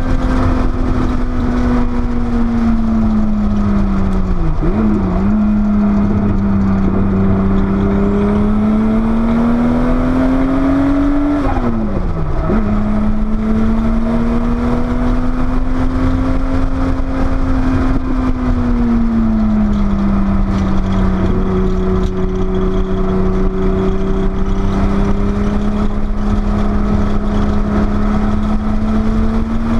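Porsche 930 Turbo's air-cooled turbocharged flat-six under way on track, its note slowly rising and falling with engine speed, with wind and road noise underneath. The pitch drops sharply about four seconds in and again about twelve seconds in, at gear changes.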